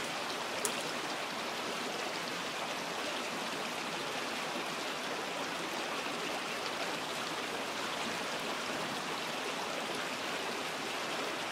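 Steady, even rushing hiss of outdoor background noise, like running water, with one faint click about half a second in.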